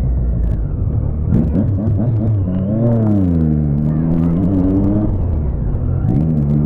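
Motorcycle engine under way, its revs climbing about a second and a half in, easing off, dipping and climbing again near the end, over a low rumble.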